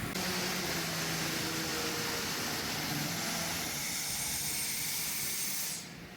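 Steady hiss of running shop machinery, with a faint low hum in the first few seconds; the noise drops away suddenly near the end.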